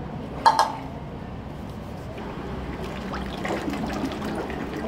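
Liquid clay slip being poured into a plaster mould, a thick gurgling trickle that grows busier in the second half. A sharp knock about half a second in is the loudest sound.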